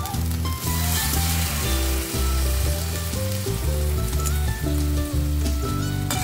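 Beef slices frying in a pan, sizzling, and stirred with a spatula partway through, with background music playing over it.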